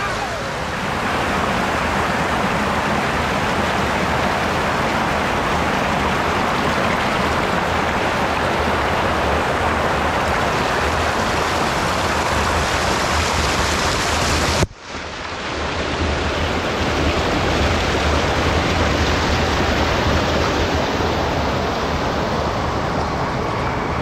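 Creek water rushing and splashing steadily close to the microphone. The sound cuts out for an instant a little past halfway, then carries on.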